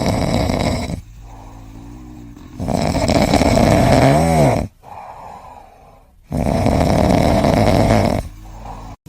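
A pet snoring loudly: three long snores about three seconds apart, the middle one carrying a short whistling tone that rises and falls.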